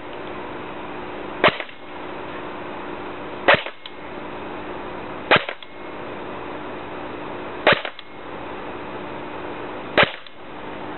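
Jing Gong G36C electric airsoft gun firing single shots: five sharp shots about two seconds apart, over a steady background hum.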